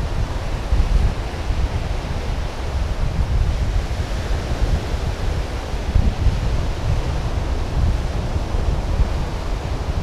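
Wind buffeting the microphone in uneven gusts, over a steady hiss of surf breaking on the beach.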